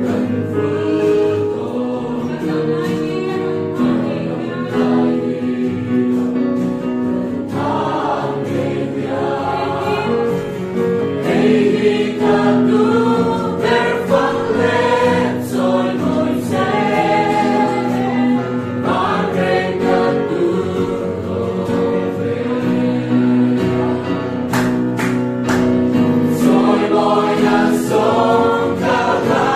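Church choir singing a Christian hymn, many voices together holding long notes, with a few sharp percussive taps near the end.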